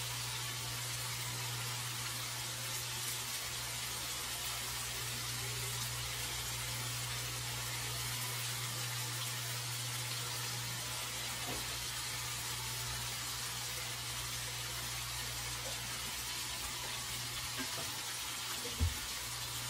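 Boneless chicken thigh pieces sizzling steadily in hot oil in a stainless steel pan as they brown, an even frying hiss over a steady low hum. One short knock near the end.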